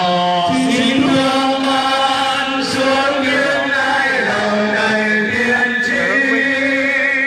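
Voices singing a slow Catholic hymn, each note held long, the melody stepping down to a lower note about halfway through.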